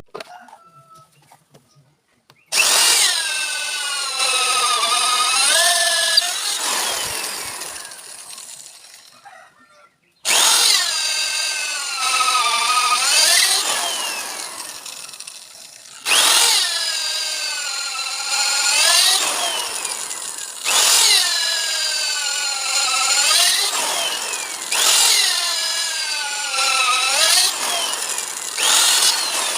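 Electric hand drill boring into wood for a door-frame mortise, in about six runs. Each run starts abruptly, and the motor's whine sags in pitch as the bit bites, then rises again as it frees.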